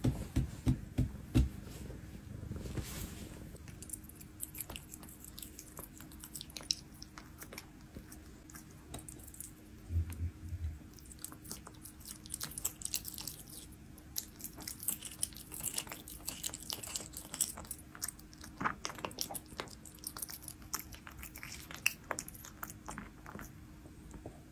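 Devon Rex cat biting and chewing chunks of raw venison, a close, dense run of irregular smacks and clicks. There are a few louder low thumps in the first second or so.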